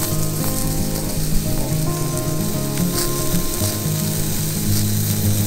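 Beef steak sizzling as it fries in a hot stainless steel pan, with background music playing over it.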